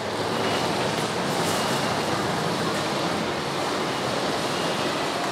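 Steady rushing background noise of a busy underground station concourse, with a few faint, short high tones now and then.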